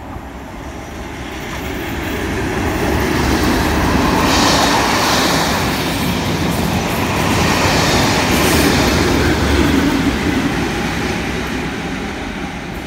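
Test train hauled by two Class 37 diesel locomotives, English Electric V12 engines, passing at speed. The sound builds as the leading locomotive approaches and passes, the coaches' wheels run by on the rails, and it fades as the rear locomotive draws away.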